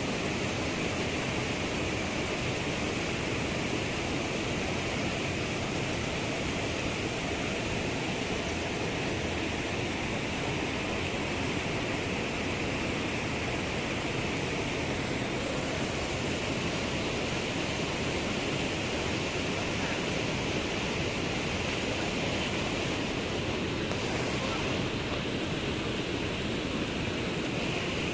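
A small waterfall rushing steadily into a rock pool, a constant even roar of falling water.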